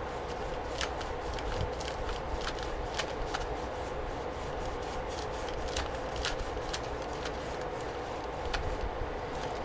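A hand rubbing and working colour into a paper journal page, making irregular scratchy clicks and swishes, over a steady background hum.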